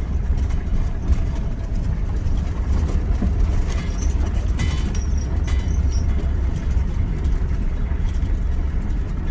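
Converted school bus driving slowly, heard from the driver's seat: a steady low engine and road rumble, with a few light rattles around the middle.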